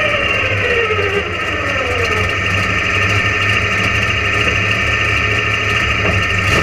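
Big-horsepower mega mud truck engine heard from inside the open cab, idling with a heavy steady rumble; its pitch falls over the first couple of seconds as the revs drop back after a blip of the throttle.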